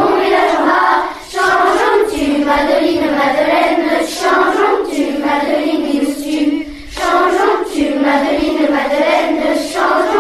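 A group of children singing a song together in unison, in sung phrases with brief breaks between them.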